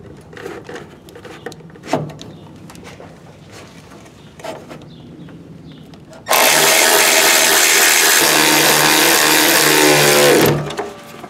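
Cordless drill driving a self-tapping screw through the car's sheet-metal firewall: a few light handling knocks, then about six seconds in the drill runs hard for about four seconds, its pitch falling as it stops.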